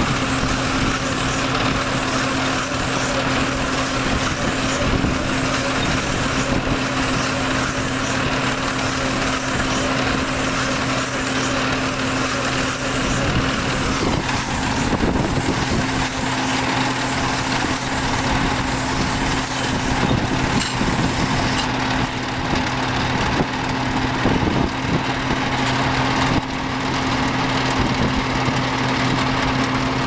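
Agronic MR 1210 round baler-wrapper running steadily, driven from its tractor, as it wraps a round silage bale in stretch film; a continuous machine hum at a constant pitch.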